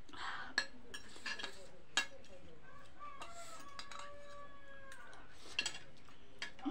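A rooster crowing: one long drawn-out call starting about three seconds in and lasting about two seconds. Sharp clinks of a metal spoon and fork on a plate come before and after it.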